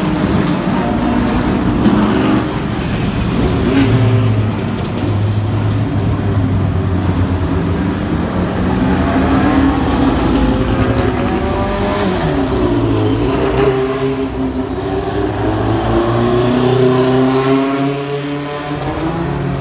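Historic single-seater racing cars driving out of the pit lane one after another, their engines revving and passing close by, loud throughout. The engine pitch rises and falls repeatedly as each car accelerates away.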